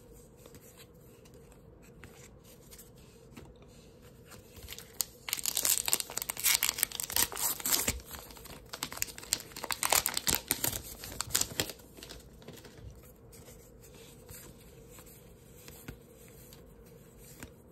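A trading-card pack's wrapper being torn open and crinkled, a loud crackling rustle lasting about six seconds from about five seconds in. Before and after it there is only faint handling of cards.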